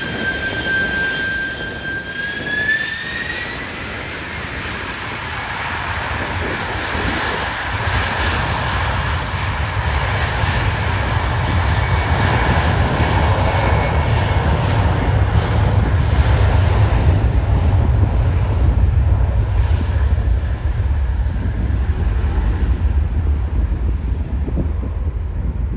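Jet airliner engines: a high fan whine that rises in pitch a few seconds in, then a low roar that builds and holds.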